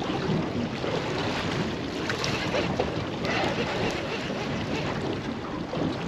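Steady rushing wind on the microphone and water noise aboard a small fishing boat at sea.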